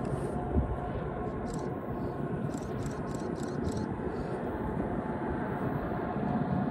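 Freight train's GE diesel locomotives approaching, a steady low rumble that starts to build near the end.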